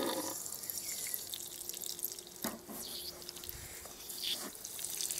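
Mains water running into a petrol pressure washer's inlet and leaking out at the hose connection with a steady hiss and small drips and splashes: the connection is loose and needs tightening.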